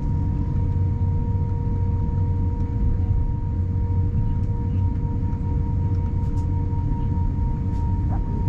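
Airbus A350-900 cabin noise during taxi at engine idle: a steady low rumble with a steady two-note whine over it.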